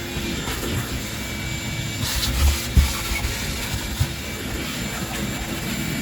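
Steady mechanical drone from a running motor, with two low thumps about two and a half seconds in.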